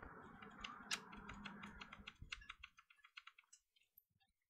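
Faint, quick run of small plastic clicks and light scraping as fingers fit and press a laptop RAM module into its slot on the mainboard, with one sharper click about a second in.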